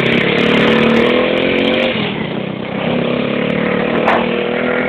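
Motorcycle engine running loudly, its pitch creeping up, dropping off about two seconds in, then picking up again a second later.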